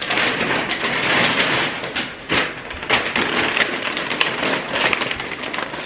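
Plastic carrier bags of groceries rustling and crinkling as they are lifted and handled: a loud, dense crackle full of sharp crinkles.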